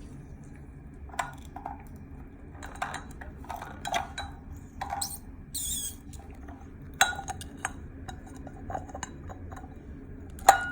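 Glass bottles and containers being handled and set down: scattered light knocks and clinks, with a brief high squeak about halfway through and one sharp ringing glass clink near the end.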